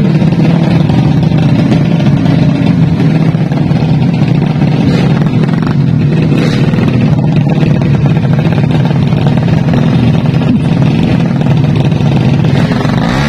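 Four-stroke underbone drag bike engine of the 200 cc class, running loud and steady at the start line with small changes in pitch.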